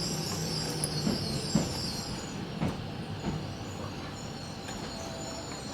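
Tobu 70000 series train braking to a stop at the end of its run, heard from inside the car. The motor tone steps down and cuts out about a second in, and the wheels give a few clacks over rail joints. It then settles to a quieter steady hum at standstill.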